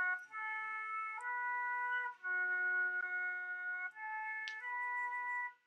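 Concert flute playing a slow rising phrase of three held notes, each about a second long, then starting the same phrase again, with short breaks between notes.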